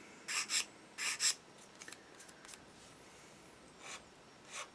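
Sanding stick rasping in short strokes against the plastic of a 1:48 model kit fuselage half, taking down the sprue gate nubs. The two strongest strokes come in the first second and a half, and two fainter ones come near the end.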